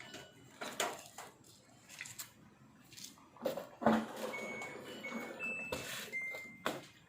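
Washing machine control panel beeping: several short electronic beeps at a few different pitches in the second half, among clicks and knocks.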